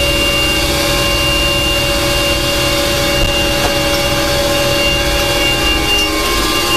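Cabin noise inside an Agusta A109S Grand twin-turbine helicopter in flight. It is a steady low rumble with several steady whining tones held over it.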